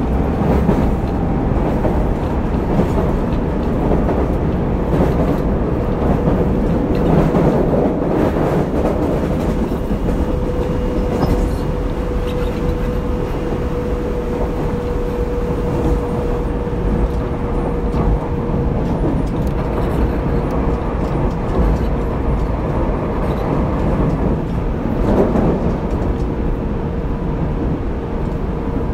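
Tobu 30000 series electric train heard from inside the motor car while running between stations: a continuous rumble of wheels on rail, with a steady whine that sets in about a third of the way through and a few light knocks from the track.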